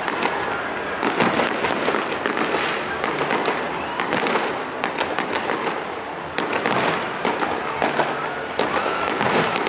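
Aerial fireworks display: rapid bangs from bursting shells over a continuous crackling of stars, with no pause.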